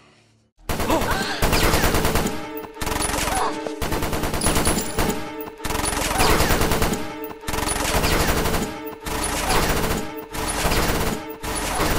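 Rapid submachine-gun fire in a string of bursts broken by short gaps, starting about half a second in.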